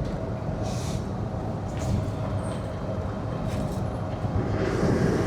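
Steady engine and tyre rumble inside a moving vehicle's cabin, with a few brief light clicks or rattles.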